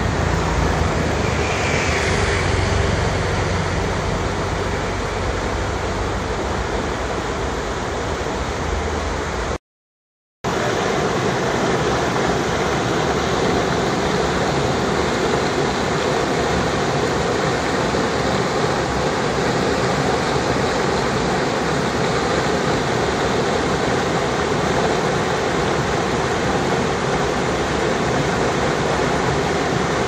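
Mountain stream rushing over boulders, a steady white-water noise. The sound cuts out for under a second about ten seconds in, then carries on.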